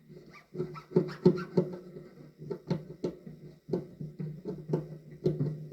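Electro-acoustic ukulele heard through its pickup: a string of light, irregular percussive strikes on the strings and body, about two or three a second, with notes ringing on between them.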